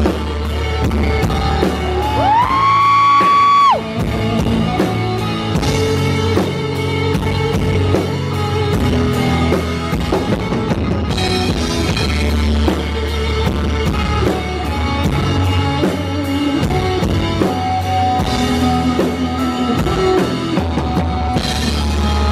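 Live rock band playing an instrumental break: electric guitar lead over drum kit and bass, with a steady cymbal beat. About two seconds in, the guitar bends a long note upward and holds it for nearly two seconds.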